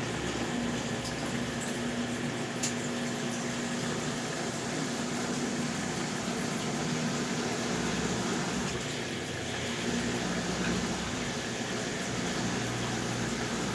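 Consul Facilite 10 kg CWC10 washing machine running in its wash stage: steady sloshing of water in the tub with a steady low hum.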